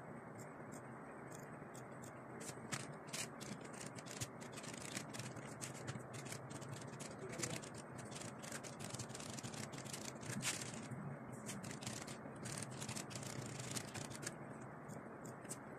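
Computer keyboard typing, played back at three times speed: a dense run of rapid, irregular key clicks over a steady background hiss.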